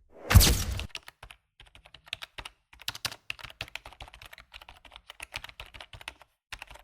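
Typing on a computer keyboard: rapid, irregular key clicks for about five seconds, after a short loud burst in the first second.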